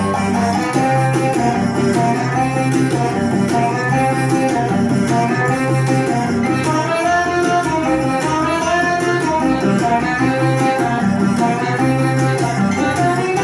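Music played on plucked guitar, with a moving melody over a steady low part.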